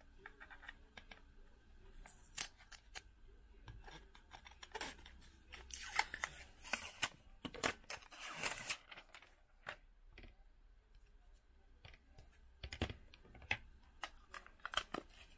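Thin protective plastic film being peeled off the glass back of a magnetic phone case: crackling tears and small clicks, the loudest bunched together around the middle.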